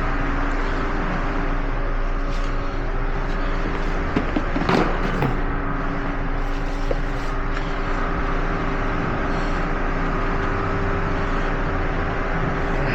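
A steady mechanical running hum with two constant whining tones, broken by a few short clicks about four to five seconds in.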